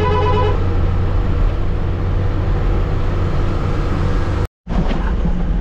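Truck engine running with road noise, heard from inside the cab while driving. A short tone sounds at the very start, and the sound cuts out for a moment about four and a half seconds in.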